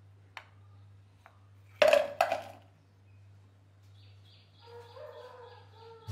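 Lumps of jaggery dropped into an empty stainless steel saucepan: two loud clattering knocks about two seconds in, roughly half a second apart.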